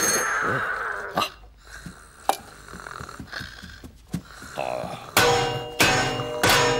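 Cartoon sound effects: an alarm clock's ringing dies away at the start. Near the end come three loud metallic clashes about half a second apart, each ringing on after the strike, as two round metal plates are banged together.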